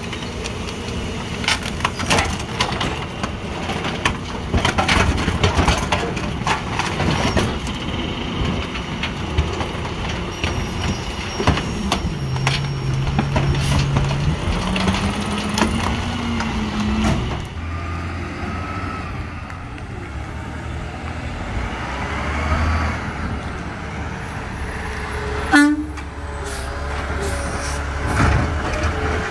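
McNeilus rear-loading garbage truck taking on bulk trash: many knocks and clangs as items are thrown into the hopper, and the engine revs up with a rising hum for several seconds partway through. Then a McNeilus side-loading garbage truck runs with a steady low drone, with one sharp loud bang near the end.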